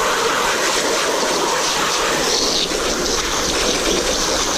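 Steady hiss of a jet of water spraying onto a rubber floor mat, rinsing off the foamy cleaner and splashing onto concrete.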